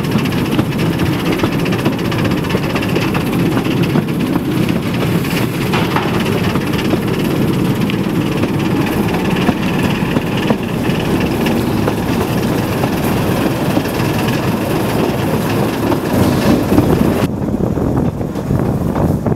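Narrow-gauge passenger train running along the track, a steady rumble of the carriage and its wheels on the rails, heard from an open carriage window. The hiss above the rumble drops away suddenly near the end.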